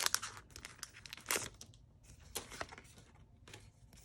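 Foil Pokémon TCG booster pack wrapper being crinkled and torn open: a run of short, sharp rustles through the first two and a half seconds, then fainter handling.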